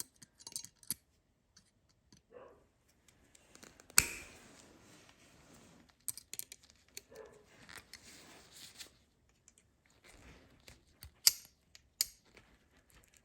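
Pliers gripping and bending a small steel figure-8 hook: scattered metal clicks and scrapes. A sharp click comes about four seconds in, followed by a short stretch of scraping, and two more sharp clicks come near the end.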